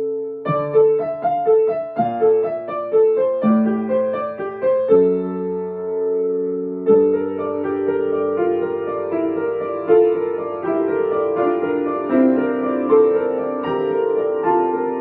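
Piano music: a run of struck single notes over a low held note, a sustained chord about five seconds in, then fuller chords with repeated notes from about seven seconds on.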